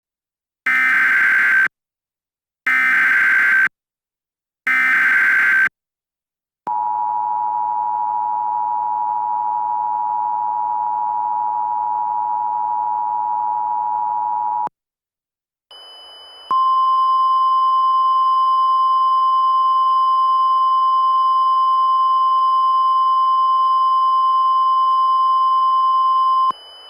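Emergency Alert System header: three one-second bursts of screechy SAME data, then the two-tone EAS attention signal held steady for about eight seconds. After a short gap comes a single steady, higher weather-radio alert tone for about ten seconds over a faint hiss, announcing the next flash flood warning.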